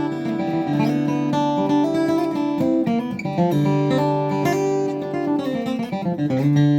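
Boucher SG-152-BMV acoustic guitar strung with broken-in Martin Monel medium-gauge strings, flatpicked with a pick. It plays a run of single notes and chords.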